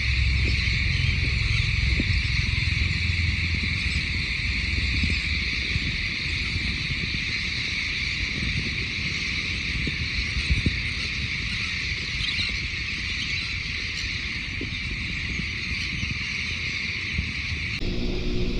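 A dense, unbroken din of many seabirds calling at once from a colony, a steady high-pitched wash of cries, with a low rumble of wind on the microphone at the start. A little before the end it cuts abruptly to background music.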